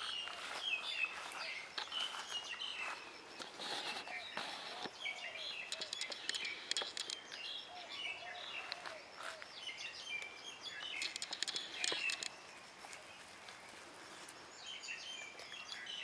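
Several birds chirping and singing at once: a busy chorus of short, high chirps and twitters that runs on with only brief lulls.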